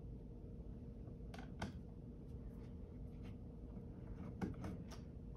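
Faint, scattered clicks and light taps of a screwdriver turning out the small bottom-panel screws of a Dell Inspiron 13 7000 laptop, over a steady faint hum.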